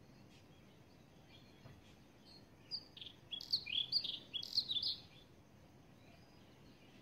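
A bird singing a quick run of high chirped notes, starting nearly three seconds in and lasting about two and a half seconds, over faint background hiss.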